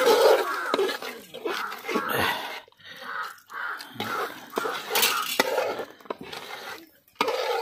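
A long metal spoon stirring and scraping mutton curry in a metal handi, in irregular strokes with sharp clinks of metal on the pot.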